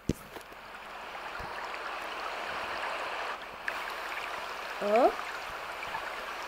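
Tap water running into a sink: after a short click, a steady rush of water that builds up over the first second or so.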